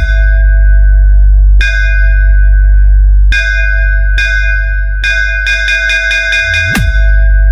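Electronic DJ sound-check music: a very deep sustained bass under a bright ringing bell sample, struck in rapid runs of several hits at a time, with a quick downward bass sweep near the end.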